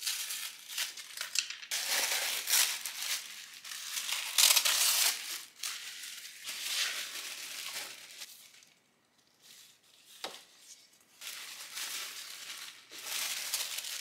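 Crinkling and crumpling of packaging being handled, in irregular bursts that die down briefly past the middle and then pick up again.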